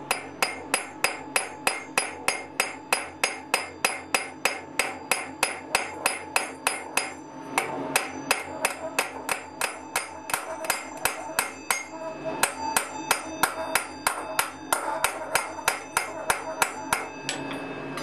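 Hand hammer setting a common-nail rivet through a forged strap into a metal ladle bowl held on a post in the anvil: steady blows about three a second, each leaving a short metallic ring, with brief pauses and the blows stopping near the end.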